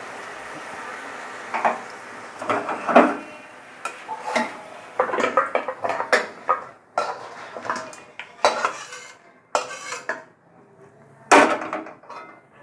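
A metal spatula scraping and knocking against a metal kadai and a steel serving bowl as cooked spinach with potatoes and fish head is scooped from pan to bowl, in an irregular run of clatters. A steady hiss fades out about a second and a half in.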